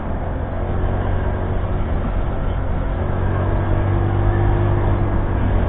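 Motorcycle engine running steadily at a cruise, heard from on the moving bike with road noise.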